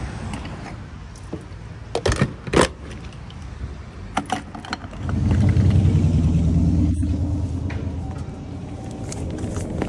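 A few sharp clicks and knocks from handling the camper van's door and keys, then a steady low hum that sets in about halfway through.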